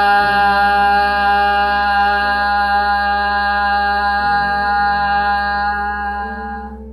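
A woman's voice holding one long, steady vowel tone on the out-breath, a healing toning sound. It grows softer and stops just before the end.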